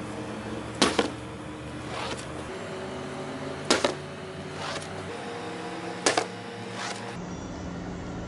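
Hammer blows on a wooden desk top: three sharp, loud strikes about two and a half seconds apart, each followed about a second later by a fainter knock.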